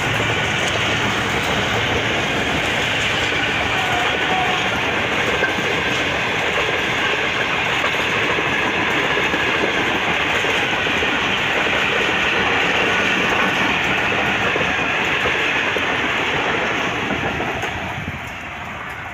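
Passenger coaches of a Pakistan Railways express train passing close at speed, their wheels rumbling steadily on the track. The sound fades near the end as the last coach draws away.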